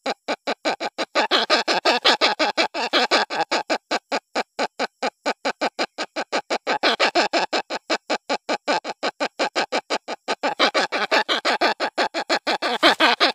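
Hornbill chick crying: a rapid, unbroken run of short, harsh notes, about six a second, growing louder about a second in.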